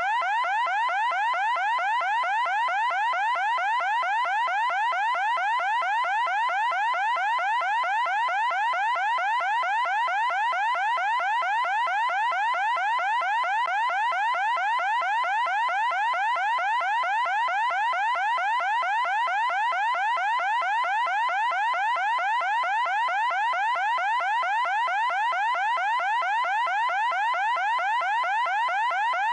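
Electronic alarm sounding a fast, repeating rising sweep, about three a second, loud and unchanging throughout.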